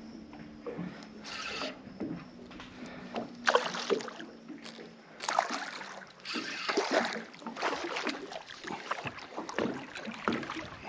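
A hooked mangrove jack being fought from a small boat: irregular bouts of splashing and fishing-reel noise, with a steady low hum through the first half.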